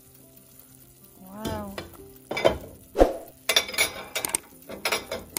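Metal utensils clattering against an enamel pot of beef broth: a run of sharp clinks and knocks, the loudest about three seconds in.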